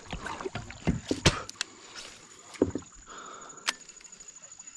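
Kayak paddle and gear knocking and clicking against a plastic kayak hull, with light water sounds, then a fast, faint ticking near the end.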